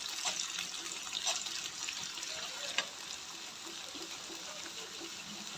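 Edible gum (kani gond) frying in hot ghee in a heavy-bottomed kadhai: a steady sizzle with a few sharp pops.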